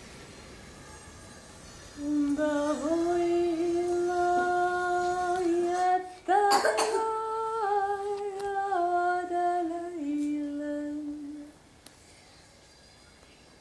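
A voice humming a slow wordless line of long held notes that step up and down in pitch, with a sharp breathy re-entry about six seconds in; it stops about eleven and a half seconds in.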